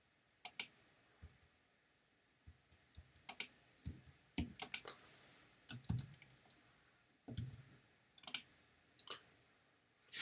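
Irregular clicks of a computer mouse and keyboard, a dozen or so sharp clicks spread unevenly, a few with a duller knock.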